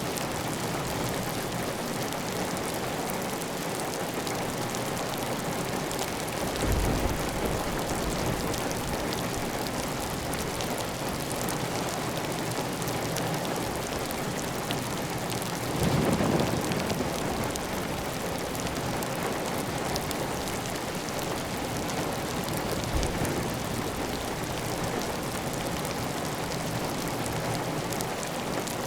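Steady, heavy rain on a tiled roof, with water running off the roof edge. A brief low rumble swells up twice, about a quarter of the way in and again just past the middle.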